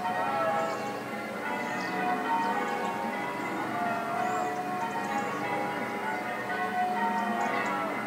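Church bells ringing together in a continuous peal, many overlapping ringing tones at a steady level.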